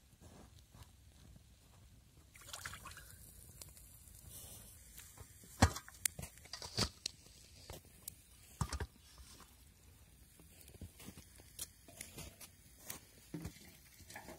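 Wet grass carp being handled in a stainless steel bowl: sloshing, wet handling noises and a few sharp knocks against the bowl, the loudest about five and a half seconds in.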